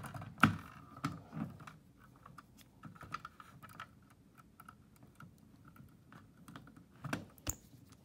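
Irregular small clicks and taps of a screwdriver working a terminal screw on a fire alarm pull station while stranded wire is fed into the terminal, with a few louder knocks about half a second in and again near the end.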